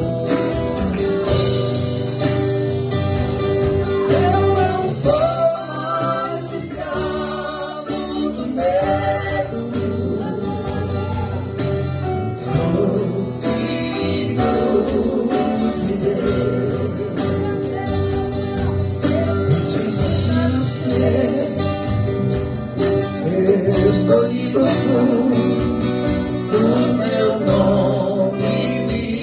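A gospel group playing live: singing voices over guitar and a steady beat.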